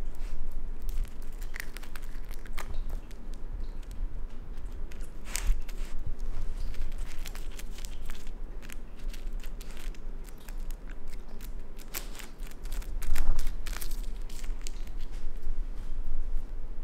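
A raccoon biting and chewing a Madagascar hissing cockroach: irregular sharp crunches and clicks, with a louder burst of crunching about 13 seconds in.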